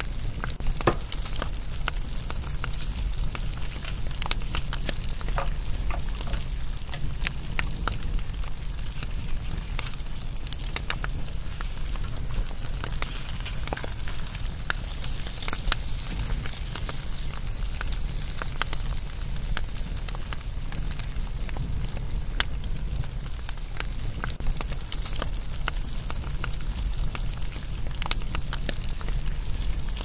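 Crackling wood fire: a steady low rumble of flames with frequent sharp pops and snaps.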